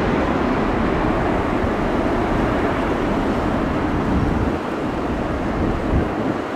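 Jet engines of a Boeing 737 airliner at low approach thrust as it flares over the runway to land: a steady rushing noise mixed with wind on the microphone, easing slightly about halfway through.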